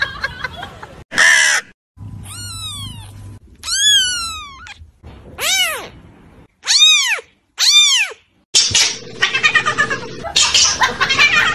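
A young kitten meowing: about five high meows, the first two long and falling in pitch, the later ones short and rising then falling. Then a longer, rapidly wavering "wawawa" cry near the end.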